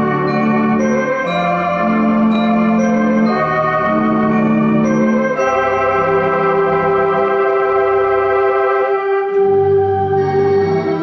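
Sampled theatre pipe organ voices played on a Yamaha AR-100 home electronic organ: a slow tune in sustained chords over changing bass notes. From about halfway through, one melody note is held long.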